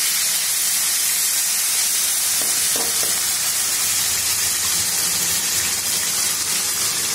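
Cumin and coriander frying in hot oil in a kadai: a steady sizzling hiss, stirred now and then with a steel spoon.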